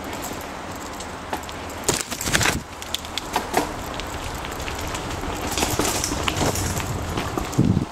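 Bicycle riding over a leaf-covered dirt trail: tyres crackling over dry leaves and twigs, with wind rumbling on the helmet-mounted microphone. The bike rattles and knocks over bumps, loudest about two seconds in and again near the end.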